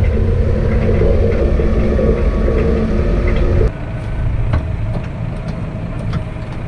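A farm vehicle's engine running steadily, then dropping abruptly to a quieter, lower running note about halfway through, with a few light clicks.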